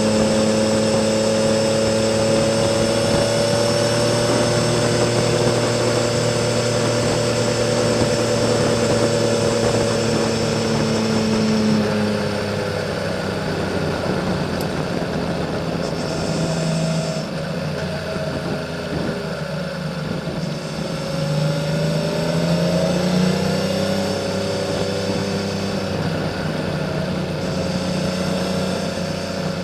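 Honda CBX 1000's air-cooled inline six-cylinder engine running through a Kerker 6-into-2 exhaust under way. It holds steady revs for about the first twelve seconds, then eases off to a lower pitch, with the revs rising and falling a few times after the middle.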